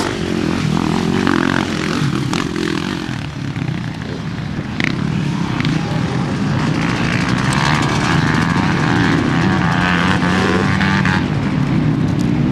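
Dirt bike engines running under throttle as riders pass, the engine note rising and falling as the throttle is opened and eased.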